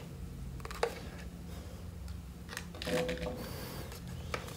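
Quiet room tone with a steady low hum and a few faint clicks and rustles from handling plastic FPV goggles, the sharpest about a second in and near the end.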